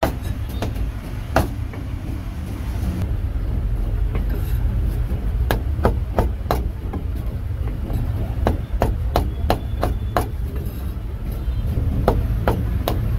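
Cleaver chopping meat on a wooden chopping block: sharp knocks, a few single ones and then quick runs of chops with short pauses between, over a steady low rumble.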